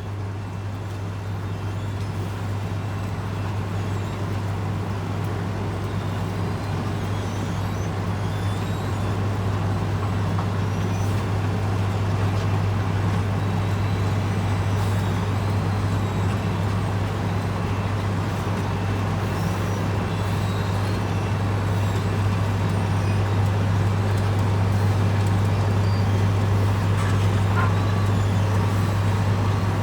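Heavy diesel construction machinery running steadily with a deep, constant hum, growing gradually louder.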